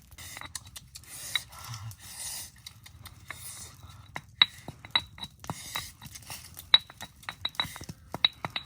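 Cooking utensils clinking and scraping: light, irregular metallic clicks that ring briefly. They come more often and closer together in the second half.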